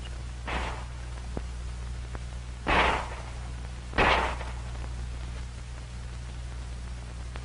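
Handgun shots fired from the prone position: a fainter report, then two louder shots a little over a second apart, each short with a brief tail. A steady low hum and hiss run underneath.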